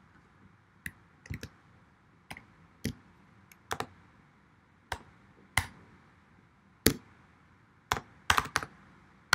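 Typing on a computer keyboard: slow, irregular key clicks, single or in quick pairs, a second or so apart.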